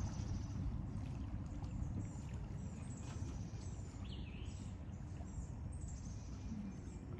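Boat motor running as a boat comes in, a steady low rumble. A few faint high chirps sound about three to four seconds in.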